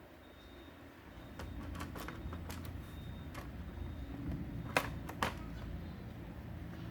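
A scatter of small sharp clicks and taps from hard parts being handled, over a low rumble of handling noise. Two louder clicks come half a second apart past the middle.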